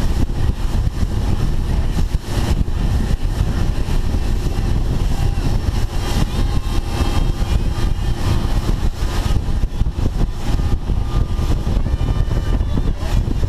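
Boat under way at speed, a steady loud rumble of engine and rushing air.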